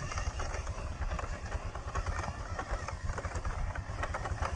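WPL C14 1/16-scale RC pickup truck driving off-road, its small electric motor and gearbox running, with a dense run of small clicks and crunches as the tyres scrabble over dirt and stones.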